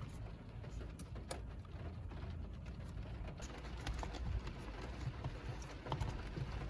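Airbag wiring connector and plastic trim being handled and worked loose from the steering wheel: a few faint, scattered clicks over a low steady rumble.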